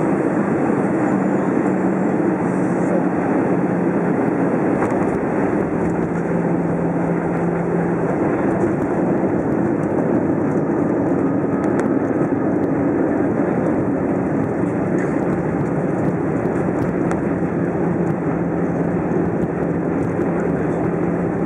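Steady engine and rolling noise heard inside the cabin of an Airbus A320 on its landing roll along the runway, with a low engine hum underneath throughout.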